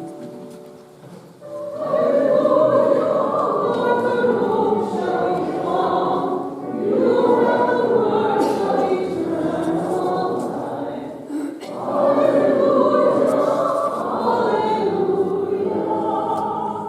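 A group of voices singing a slow hymn verse in three long phrases, entering about two seconds in after a few held instrument notes.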